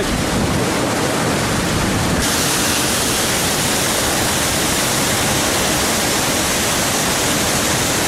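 Rain-swollen waterfall pouring over rock: a steady, dense rush of water that turns brighter and hissier about two seconds in.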